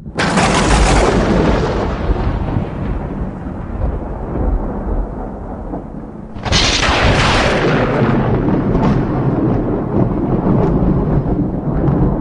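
Thunder: a sharp crack that rolls into a long fading rumble, then a second loud clap about six and a half seconds in, rumbling on to the end.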